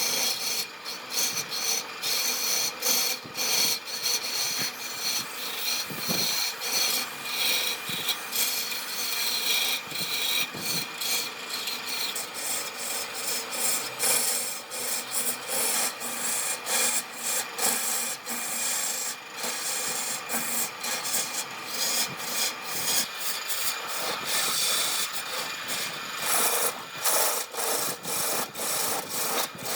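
Rough scraping on wood in quick, uneven strokes, like a rasp or abrasive worked across a wooden surface.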